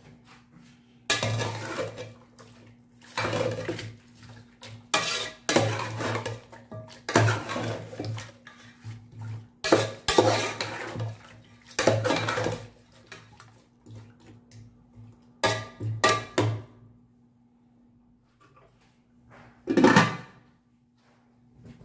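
Metal spoon clattering and scraping against the inside of an aluminium pot as raw chicken is mixed in its marinade, in repeated bursts of a second or so. Near the end comes one loud clank as the aluminium lid is set on the pot.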